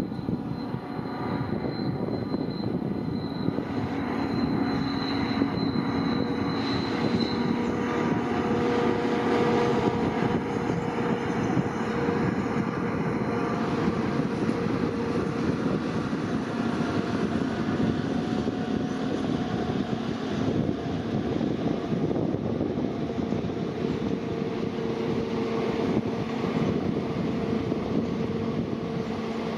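A pair of ALCo diesel-electric locomotives working together, their turbocharged diesel engines running with a steady heavy drone. A thin high whine sounds over it for the first several seconds, then fades out.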